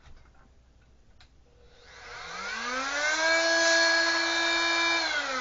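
Oscillating sander (oscillating multi-tool) switched on with a new sanding pad fitted: its motor whine rises in pitch as it spins up, holds steady, then begins to fall near the end as it winds down.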